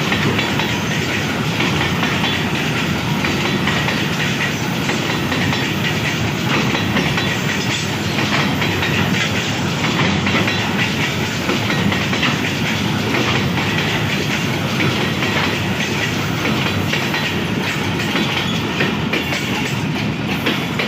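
A loaded coal freight train rolling past at speed, its wagon wheels clattering steadily over the rail joints.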